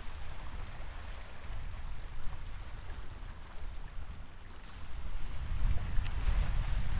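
Wind buffeting the microphone over the wash of sea surf, growing louder about five and a half seconds in.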